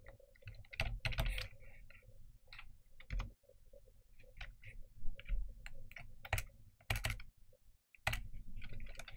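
Computer keyboard being typed on: irregular key clicks in quick runs with short pauses, over a faint steady hum.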